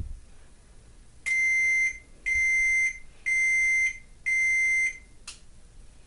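Microwave oven control panel's beeper sounding four even beeps, one a second, signalling that the countdown has ended. A single click follows about a second after the last beep.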